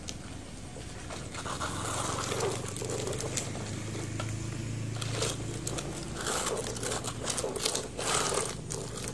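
Plastic toy excavator scraping and rolling over sandy dirt by hand, with gritty scraping and scattered plastic clicks and knocks.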